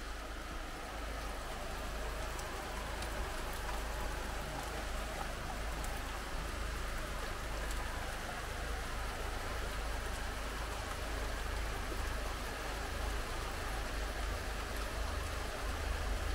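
Steady rain falling, with individual drops ticking now and then and a low rumble underneath.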